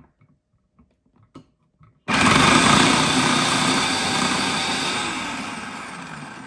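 A few light taps, then about two seconds in a small electric motor switches on abruptly and runs loudly, slowly fading.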